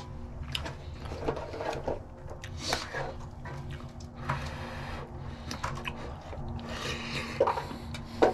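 Scattered light clicks and scrapes of a spork against a metal cooking pot during eating, over a faint steady hum.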